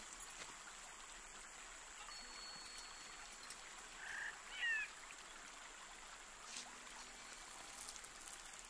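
Faint forest ambience: a steady, even hiss like running water, with a short gliding chirp about halfway through.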